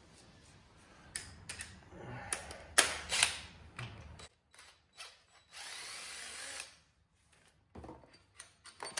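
Metal tool clinks and ratchet clicking, then a cordless DeWalt drill/driver spins steadily for about a second, running a starter-motor bolt out, followed by a few more clinks.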